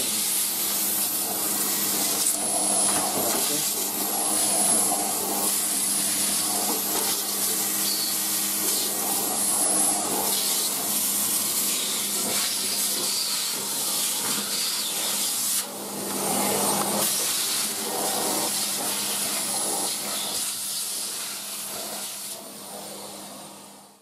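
Numatic Henry HVR200A vacuum cleaner running, a steady motor hum under a high hiss of suction as the floor tool is worked over a hard floor. The suction sound shifts as the nozzle moves, dips briefly about two-thirds of the way in, and fades near the end.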